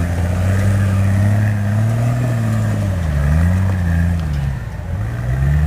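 Nissan Patrol 4x4's engine working under load as it crawls up a steep dirt slope, the revs rising and falling several times.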